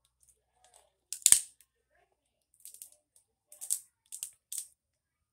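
Crab leg shell cracked by hand close to the microphone: one sharp crack about a second in, then several shorter crackles as the shell is broken and peeled apart.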